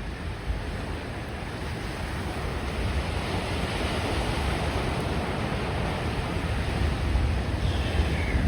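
Big North Shore surf breaking and the whitewash rushing in, a steady roar that swells through the middle. Wind buffets the microphone with a low rumble.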